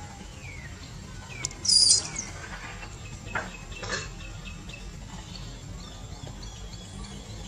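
Macaques giving short high squeaks and chirps, the loudest a shrill squeal about two seconds in, over a steady low rumble.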